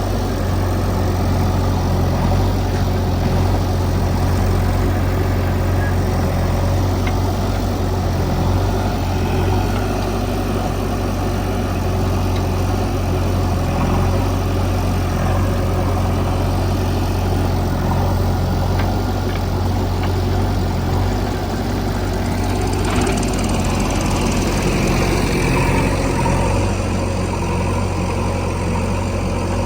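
Heavy diesel engine running steadily with a deep, even drone. Its tone shifts slightly about two-thirds of the way through.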